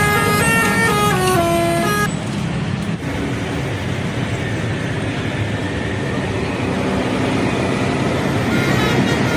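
Bus 'telolet' musical horn playing a stepped multi-note melody that cuts off about two seconds in, followed by the bus's engine running with road noise.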